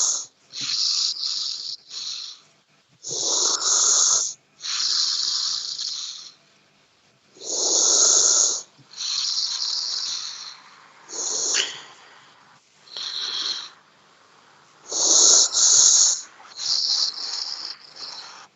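Snoring: a rhythmic run of loud, rough breaths, about one every one to two seconds. Some have a rasping lower part and others are mostly a wheezy hiss, with a short lull before the last few.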